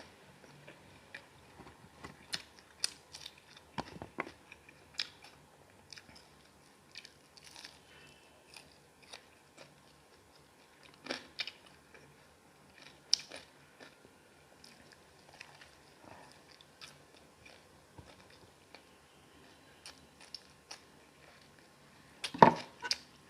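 A person chewing and biting into a masala chicken leg piece, close to the microphone: scattered wet mouth clicks and smacks with occasional crunches. A louder clatter of knocks comes near the end.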